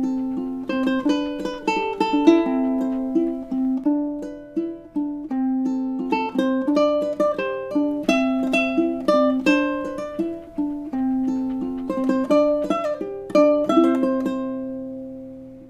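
Solo ukulele playing a tune in picked notes and chords, the last chord ringing out and fading away near the end.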